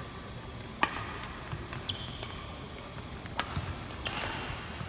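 Badminton rally: several sharp cracks of rackets striking the shuttlecock at irregular intervals, the loudest about a second in.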